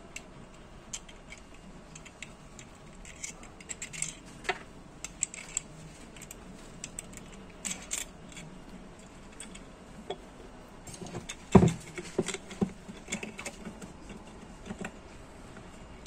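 Small metallic clicks, taps and rattles of a hex key and small screws being handled and driven into a 3D-printed plastic mount, with one louder knock about two-thirds of the way through.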